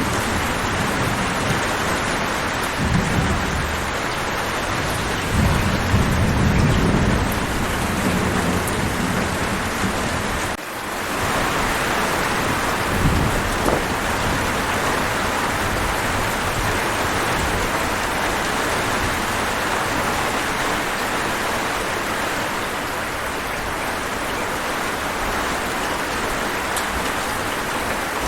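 Heavy rain falling steadily, with thunder rumbling several times in the first half, loudest about five to eight seconds in.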